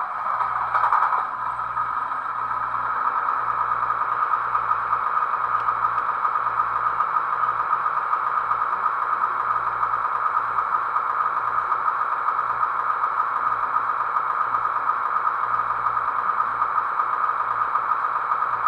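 Märklin DB class 216 diesel locomotive model's sound decoder playing the engine start-up through the model's small speaker: louder for the first second or two, then settling into a steady diesel idle.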